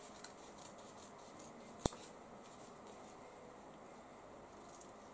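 Scissors cutting through fabric and a pinned paper pattern: a run of quiet snips, with one sharp click a little under two seconds in.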